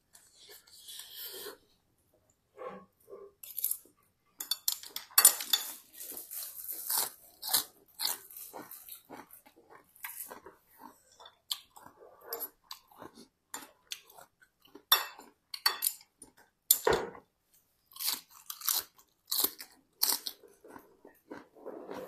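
A person chewing and crunching a mouthful of spicy Thai seafood salad close to the microphone, in irregular bursts of crackles and clicks, with one louder knock past the middle.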